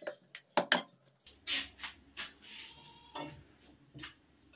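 Wooden rolling pin working a disc of dough on a wooden board: short knocks and rubbing strokes, then scattered handling knocks over a faint low hum.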